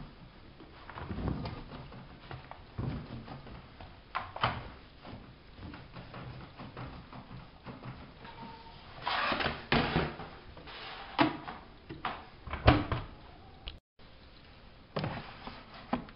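Irregular knocks and clunks of something being handled, opened and shut, with a rustling scrape about two-thirds of the way in and the loudest thump shortly after.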